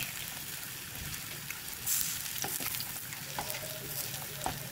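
Slices of parboiled potato frying in oil in a nonstick pan, with a steady sizzle. A few light clicks and scrapes of a metal fork come through as the slices are turned over.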